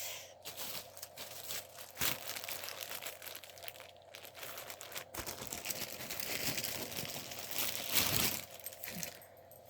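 Plastic packaging crinkling and rustling as it is handled and pulled open, with a louder burst of crinkling about eight seconds in.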